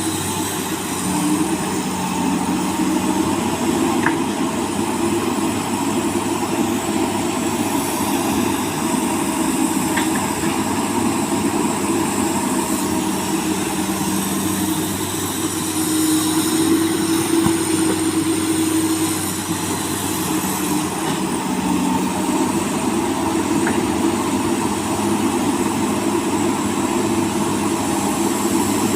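Komatsu PC200 excavator's diesel engine running steadily while it digs, its note swelling for a few seconds a little past the middle.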